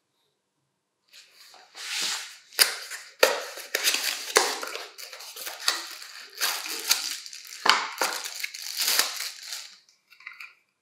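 Cardboard box flaps being pulled open and a clear plastic bag crinkling as a small part is unwrapped: a busy run of sharp crackles and rustles that starts about a second in and stops near the end.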